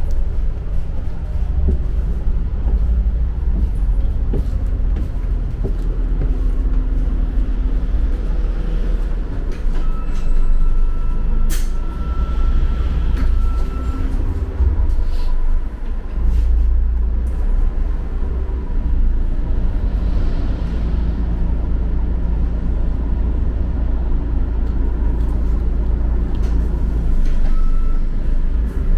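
Double-decker bus running, heard from inside the cabin: a steady low engine and road rumble. Near the middle, a steady high tone sounds for about four seconds, with a sharp click partway through it.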